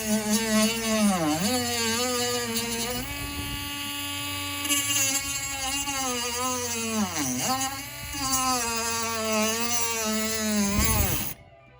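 Small handheld rotary tool running with a steady high whine while cutting into a plastic charger case. Its pitch dips twice as it bogs under load, and near the end it spins down and stops.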